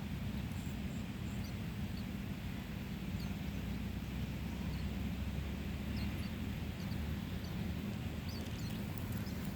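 Faint, short, high cheeps from nestling birds in a nest, scattered about once a second, over a steady low rumble.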